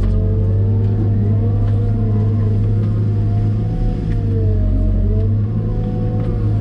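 Cat M313D wheeled excavator's diesel engine running steadily under load, with a whine that wavers slightly in pitch.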